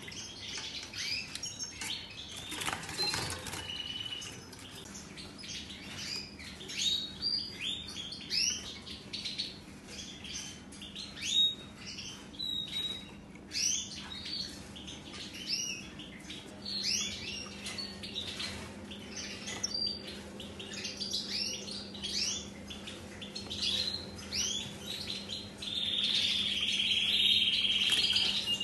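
Caged European goldfinches twittering and singing in a fast run of varied chirps, with wings fluttering as they flit between perches. Near the end comes a louder buzzy trill.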